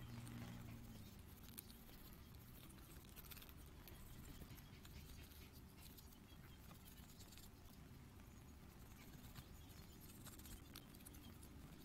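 Near silence: a low steady hum with faint scattered scratches and ticks from a tissue rubbing a small tinted plastic toy-car window piece.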